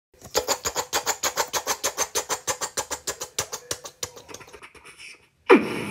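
Rapid, even tapping, about five or six taps a second, with a faint steady hum under it; the taps fade near the end. Just before the end comes a sudden loud sound that falls in pitch.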